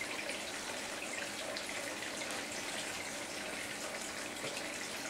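Steady, even hiss of background room noise, with no distinct event standing out.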